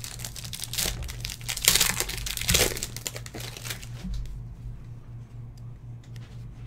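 Trading cards being handled and flipped through, with a dense crinkling and rustling of card stock and plastic over the first few seconds that thins out to a few light clicks. A steady low electrical hum runs underneath.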